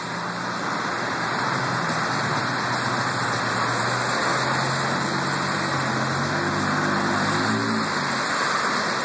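Steady hiss of tyres and spray on a wet, slushy highway, heard from inside a moving car, with an engine drone that shifts in pitch from about four to eight seconds in.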